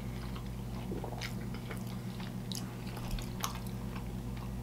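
Close-up chewing of a mouthful of bacon-and-cheese chopped cheese sandwich: a few faint, scattered wet mouth clicks over a steady low hum.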